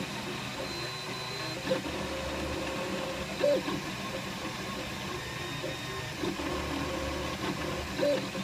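Flashforge Dreamer 3D printer printing. Its stepper motors whir as the nozzle moves, over a steady hum. Three short, louder pitched chirps come as the head changes moves.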